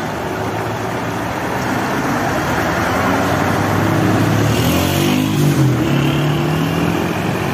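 Truck engine running amid road traffic, its pitch rising a few seconds in and then wavering as it revs. A short hiss comes near the middle.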